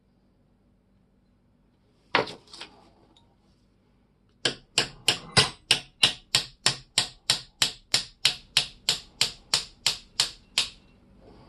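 Small hammer tapping on metal at the vise: a single tap about two seconds in, then a steady run of about twenty sharp taps, about three a second.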